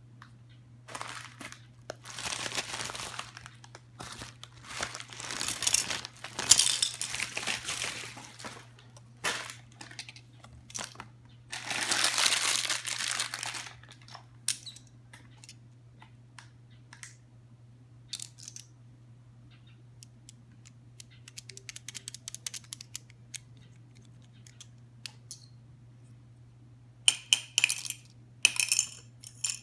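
Plastic packaging crinkling and being torn open in several long rustling bursts, followed by scattered small clicks and taps of handled plastic parts and two sharper rustles near the end.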